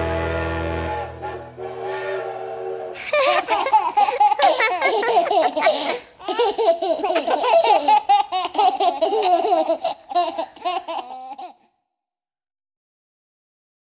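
The last chord of a children's song dies away, then a group of children and adults laugh together for about eight seconds before stopping abruptly.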